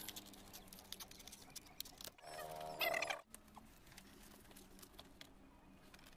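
Metal snips cutting stiff sandpaper: a run of crisp snipping clicks, then a short pitched squeal of about a second near the middle, the loudest sound.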